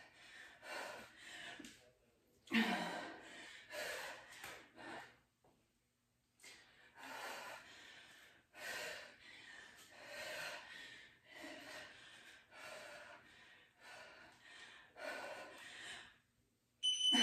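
A woman breathing hard from exertion, with short, forceful breaths about once a second as she swings and catches a kettlebell; the loudest breath comes about two and a half seconds in. A short high beep sounds near the end as the interval timer runs out.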